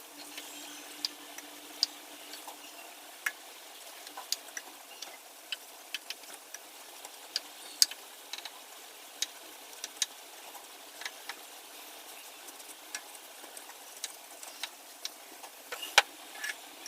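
Scattered sharp light clicks and ticks at an irregular pace over a faint steady hiss, with a louder cluster of clicks near the end.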